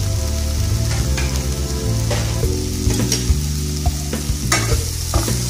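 Diced onion and bell peppers sizzling in melted butter in a nonstick frying pan, with a couple of light knocks partway through.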